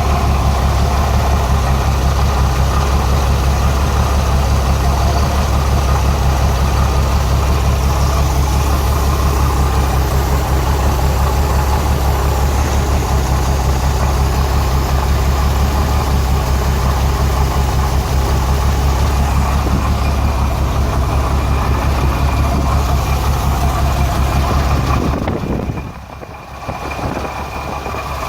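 Renix-era Jeep Cherokee inline-six idling roughly with a misfire on cylinder 6. The owner traces the miss to cylinder 6's exhaust valve rocker, which moves less than the others. The sound drops briefly quieter about 25 seconds in.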